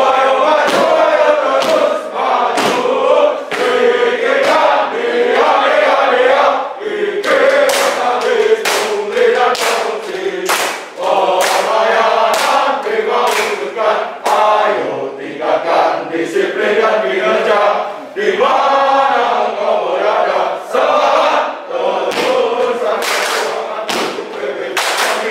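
A group of men chanting in unison as a drill routine, punctuated by sharp thumps of stamping and strikes roughly once a second.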